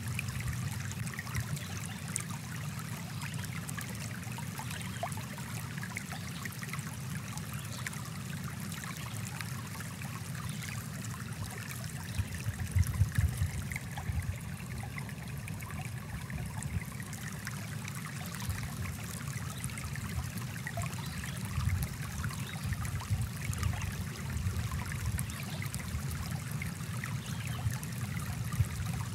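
Small stream flowing over rocks: a steady rush of water, with a few louder, uneven surges about halfway through and again in the last third.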